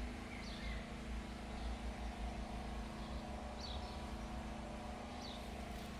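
Quiet outdoor background: a steady low rumble with a faint hum, and a few faint short bird chirps.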